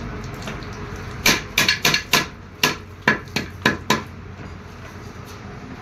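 Hammer striking a Fiat tractor brake band on a jig, setting the rivets of a new brake lining: about ten sharp metallic blows in quick succession, starting about a second in and stopping about four seconds in.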